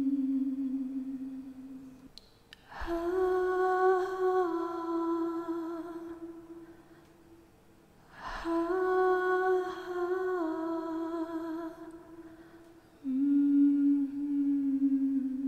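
A woman humming a slow melody in long held notes, in phrases of a few seconds with short pauses between them; within each phrase the pitch steps between a few notes.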